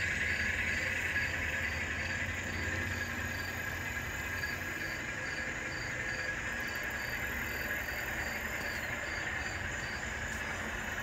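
N scale freight cars and a caboose rolling along model railroad track: a steady low rumble and hiss. A faint high chirp repeats about twice a second behind it.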